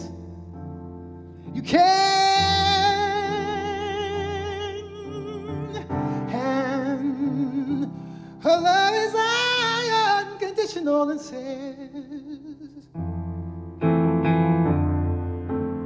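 Male singer holding long, high notes with a wide vibrato, accompanied by a grand piano.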